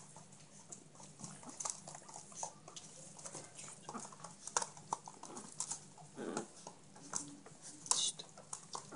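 A litter of young chihuahua puppies moving about on an absorbent pad in a plastic tub: faint, scattered scratching and rustling. There is a louder scuffle about six seconds in and another near the end.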